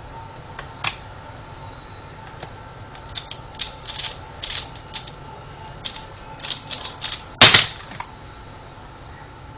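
Plastic Pyraminx puzzle being turned fast, a quick irregular run of sharp clicks, ending about three quarters of the way through in a loud slap as the puzzle is put down and the hands come down on the timer pads to stop the solve timer.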